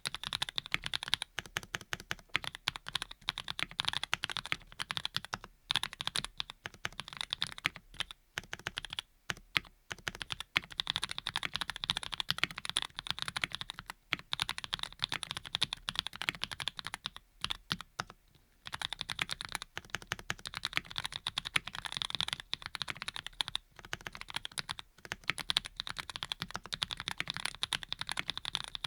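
Mechanical keyboard typing: a Graystudio Think6.5 V2 with lubed linear switches (Cherry bottom housings, Cream stems and tops) and a Thinsulate-dampened case. Fast, steady keystrokes run throughout, with brief pauses about eight to ten seconds in and again around eighteen seconds.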